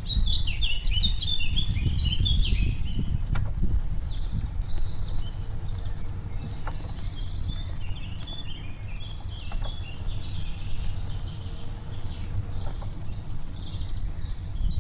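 Songbirds chirping and trilling in quick, high notes, busiest in the first few seconds and sparser later, over a steady low rumble from riding a bicycle, with wind on the microphone.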